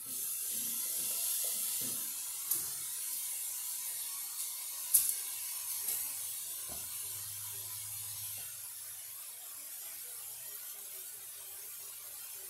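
Ground-beef hamburger steak sizzling as it is laid into a hot skillet: a steady hiss that starts at once and slowly fades. Two sharp clicks come about two and a half and five seconds in.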